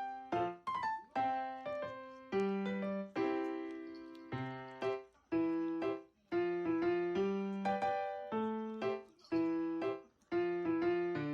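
Background music: a gentle piano melody of single notes that strike and fade one after another.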